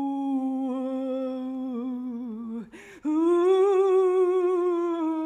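A woman's voice imitating an eerie wind with two long, drawn-out "hui" sounds. The second starts with a breathy h about three seconds in, a little higher, then slowly sinks.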